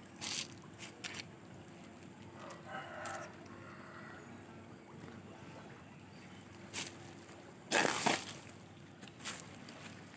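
Quiet riverside ambience: a faint steady hiss of flowing river water, a distant rooster crowing briefly about three seconds in, and a few short crackling noises, the loudest about eight seconds in.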